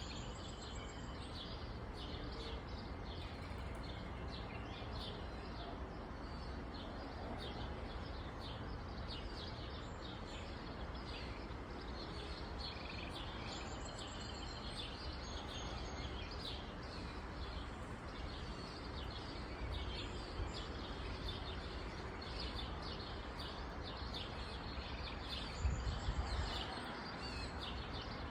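Small birds chirping over and over, short high chirps all the way through, over a steady low background rumble; near the end a brief louder low thump.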